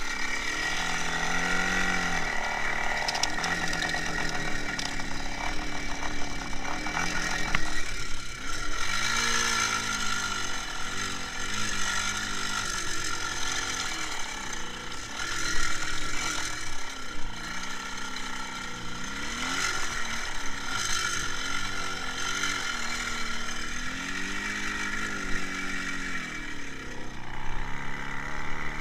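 IZh Jupiter 5's two-stroke twin-cylinder engine running under way, its pitch rising and falling repeatedly as the revs go up and drop back.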